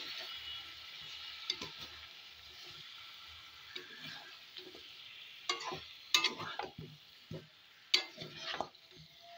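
A thick chicken, potato and jackfruit curry sizzling in a pan as it is stirred, with several sharp scrapes against the pan, the loudest about six and eight seconds in.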